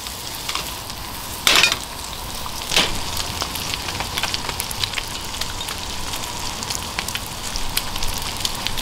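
Slices of canned luncheon meat sizzling in a frying pan over a camp burner: a steady crackling hiss with fine spitting pops, and two louder crackles about one and a half and three seconds in.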